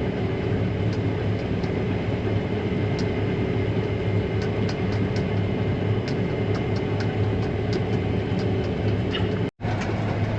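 Steady drone of heavy machinery running, with a constant low hum and scattered faint ticks. The sound cuts out for an instant near the end.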